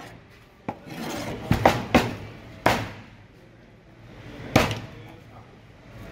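Large kitchen knife chopping through mahi-mahi pieces, the blade knocking sharply into the cutting board. There are about six knocks, most in a quick run over the first three seconds, then one more after a pause.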